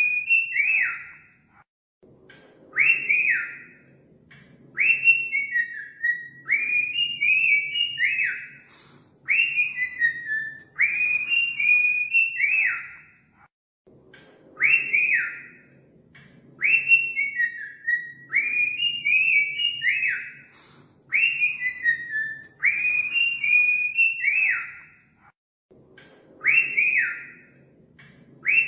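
Cockatiel whistling its song: short phrases of rising-then-falling whistles come about every two seconds. The sequence repeats roughly every twelve seconds, with a brief pause between repeats.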